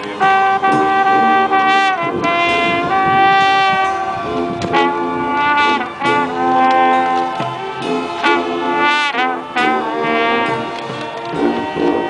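School marching band playing a funk arrangement: the brass section holds loud sustained chords with a few quick pitch bends and rips, over drum hits.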